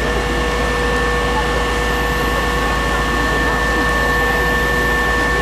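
Fire brigade aerial platform truck running, its engine and hydraulics giving a steady, even rumble with a few held whining tones over it as the boom moves.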